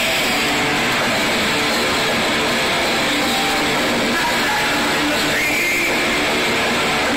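Loud live rock band with distorted electric guitars, a dense and unchanging wall of sound with a high held guitar tone about five seconds in.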